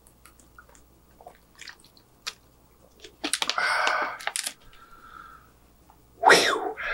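Swallowing gulps from a plastic water bottle, heard as small soft clicks. About three seconds in comes a loud breathy exhale after the drink. Near the end there is a short, louder blow from pursed lips that falls in pitch.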